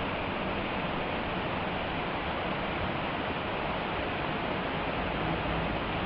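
Waterfall water sheeting down a broad sloping rock slab and splashing into a pool, a steady rushing noise.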